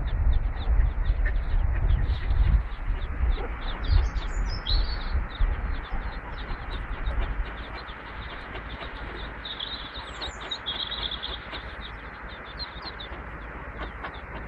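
Mallard ducklings peeping rapidly and continuously, a steady stream of high, thin peeps with a few louder calls about four seconds in and again near ten seconds. A low rumbling noise on the microphone covers the first half and then fades.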